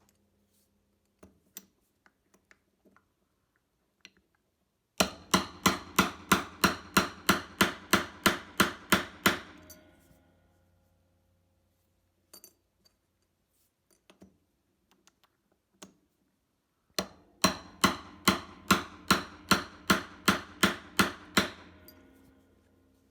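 Hammer blows on a ring flaring tool: two runs of quick, evenly paced, ringing metal strikes, about four or five a second, flaring the edge of an Argentium sterling silver ring band.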